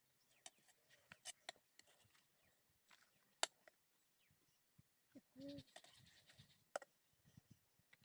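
Near silence, broken by scattered faint clicks and one short pitched call about five and a half seconds in.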